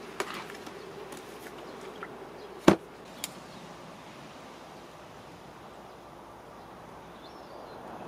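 Steady buzzing hum of a portable compressor camping fridge, with a sharp click about two and a half seconds in and a lighter click half a second later, after which the hum fades.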